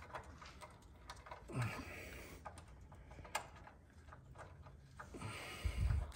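Faint, scattered metallic clicks and taps of a bolt and lock nut being handled and fitted into a motor mount bracket on a truck frame, with a dull thump near the end.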